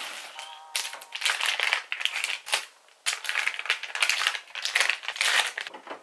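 Plastic packaging wrap crinkling and rustling as it is pulled off and handled, in irregular bursts, with a short lull about three seconds in.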